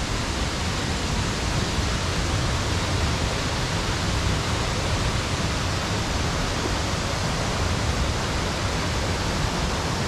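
Small waterfall and river cascades rushing steadily over rock ledges, a continuous even roar of water.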